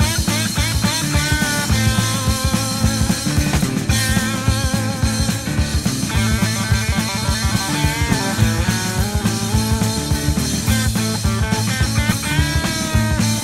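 Hard rock band playing an instrumental passage from a live recording: a lead guitar line with bent, wavering notes over bass guitar and a steady drum kit.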